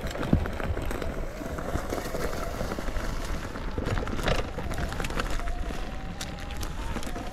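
Talaria Sting electric dirt bike riding over a rough forest trail: a faint electric-motor whine that rises and falls with the throttle, over rattles and knocks from the bike on the uneven ground and a low rumble of wind on the microphone. The loudest knock comes about four and a half seconds in.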